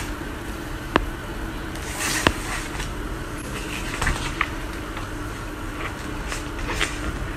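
Sketchbook pages being turned and handled: short papery swishes, with two sharp clicks about one and two seconds in, over a steady low hum.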